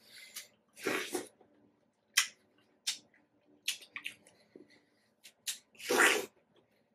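Watermelon being eaten close to the microphone: wet mouth clicks and smacks of chewing, with two louder juicy slurps about a second in and near the end.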